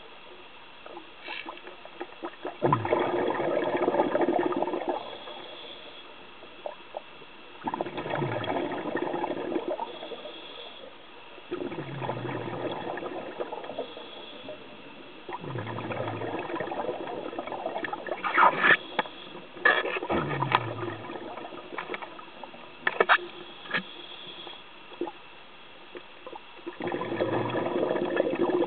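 A scuba diver's exhaled breath bubbling out of the regulator, heard underwater. It comes in about six gurgling bursts, one every four to five seconds, with quieter pauses for the in-breaths between them and a few sharp clicks in the middle.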